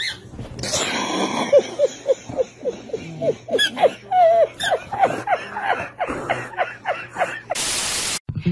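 A man laughing hard in a long run of short, falling, wheezy laugh syllables, about three a second. Near the end, a brief burst of TV static hiss cuts in.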